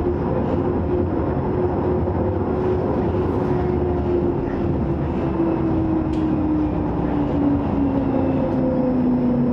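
Tram running along a street, heard from inside the car: a steady rumble and hiss of wheels on rail, with a motor whine that slowly falls in pitch.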